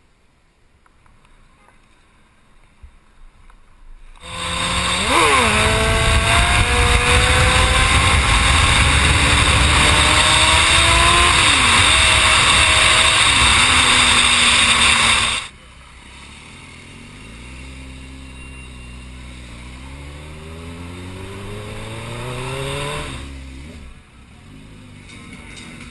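Sport motorcycle engine accelerating hard, its pitch climbing and dropping back through gear changes under a loud rush of wind noise at high speed. After a sudden cut about fifteen seconds in, the engine is quieter and revs up repeatedly through the gears, its pitch climbing in steps.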